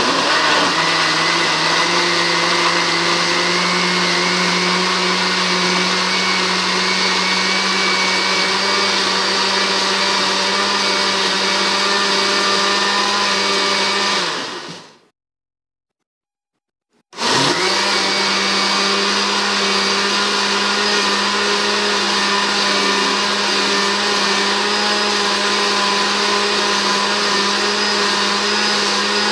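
Countertop electric blender running steadily, whirring its load of apple, banana and milk into a milkshake. About 14 seconds in the sound fades away, there are about two seconds of silence, and then it starts abruptly and runs steadily again.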